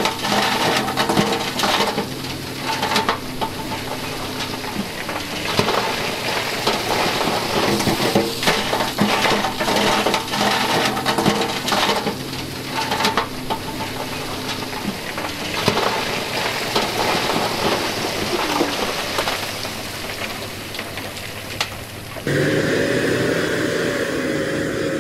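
Dump truck diesel engines running with a steady hum while rock and gravel slide out of a tipped bed, clattering and crackling down the bank into the water. About three seconds before the end the sound changes abruptly to a louder, steady engine hum.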